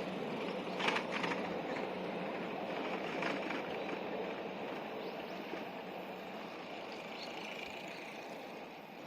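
Rumble of a passing train fading as it moves away, with a few clicks about a second in and again near three seconds.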